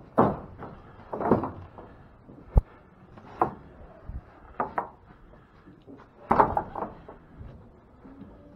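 Wooden cattle-pen gates and boards knocking and rattling: several irregular knocks and short scraping rattles.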